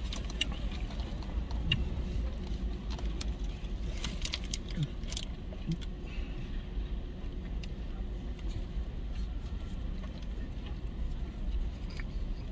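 Steady low hum inside a car cabin, with scattered small clicks and rustles from people eating and handling their food.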